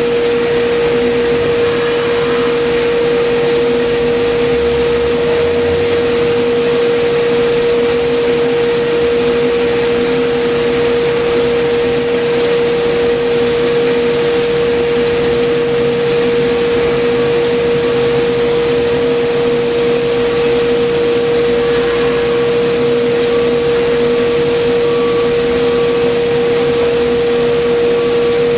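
Pagani 2550 plastic granulator and its centrifugal blower running steadily, conveying ground polyethylene to a cyclone and bag: a loud, even mechanical whir with a strong constant hum-tone.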